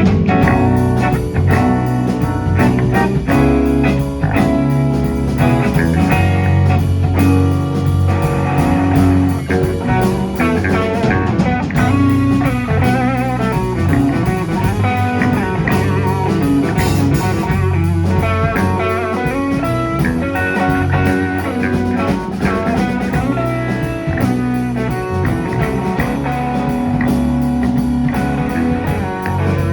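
Live blues-rock band playing an instrumental passage: electric guitar leads over bass and drum kit.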